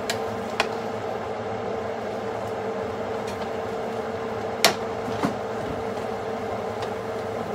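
A steady mechanical hum with an even tone, broken by one sharp click about four and a half seconds in and two fainter clicks.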